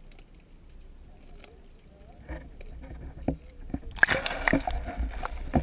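Underwater recording: scattered sharp clicks and crackles over low murky noise, then a louder dense burst of crackling and knocks about four seconds in that lasts about a second and a half.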